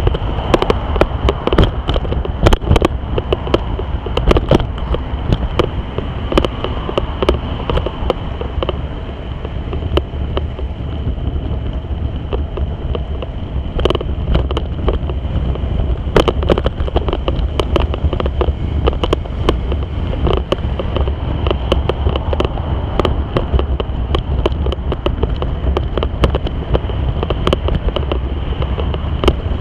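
Wind rumbling on the microphone of a camera carried while cycling, with frequent sharp clicks and knocks scattered throughout and a steady high tone running under it.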